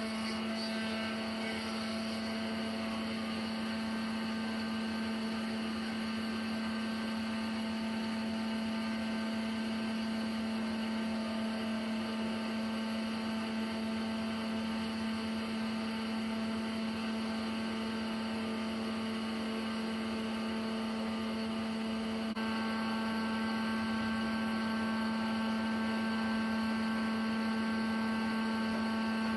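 Sawmill machinery running with a steady hum. About three quarters of the way through, a higher steady whine joins in and it gets slightly louder.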